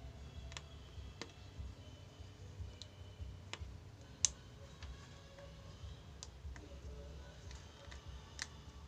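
Irregular small clicks and taps of a circuit board and a plastic wire connector being handled while a speaker cable is fitted back onto a CRT television's board. The sharpest click comes about halfway through, with a steady low rumble underneath.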